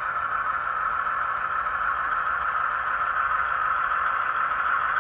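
HO scale model diesel locomotive running along the layout track: a steady, even running sound without breaks, growing slightly louder.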